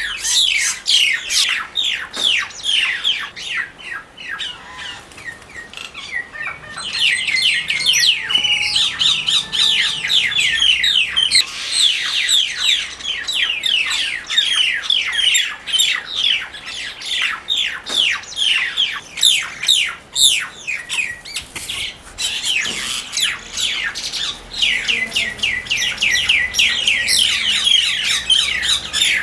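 Common mynas fighting, giving a rapid, unbroken run of harsh squawks, several a second, each note falling in pitch. The calling eases off briefly twice before picking up again.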